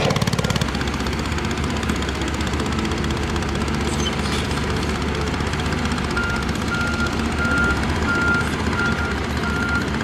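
Diesel engine of heavy construction equipment running steadily, its sound changing abruptly about half a second in. From about six seconds in, a machine's reversing alarm beeps about twice a second.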